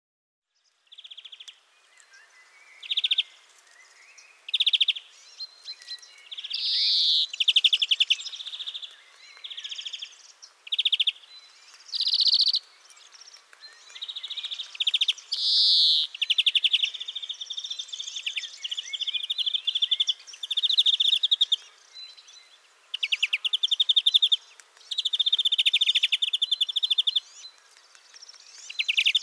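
European greenfinch singing: a long series of rapid trilled phrases, each a second or two long, separated by short pauses, with a few higher, brighter notes mixed in.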